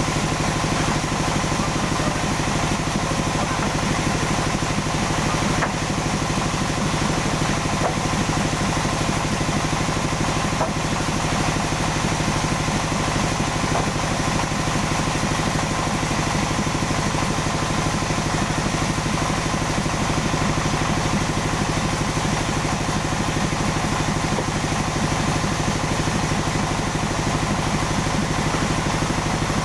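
Sawmill machinery running steadily: an even engine drone with a fast, regular throb.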